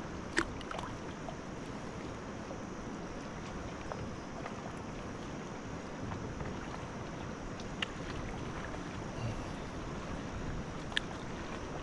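Steady rushing noise of flowing river water and wind, broken by a few short sharp clicks, the loudest about half a second in.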